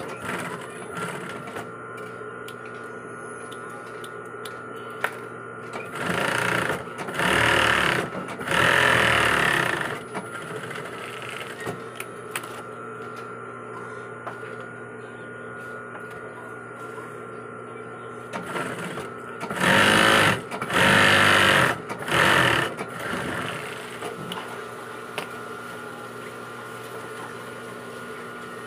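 Industrial sewing machine stitching fabric in short runs: three runs about six to ten seconds in and three more around twenty seconds in, with a steady hum between them.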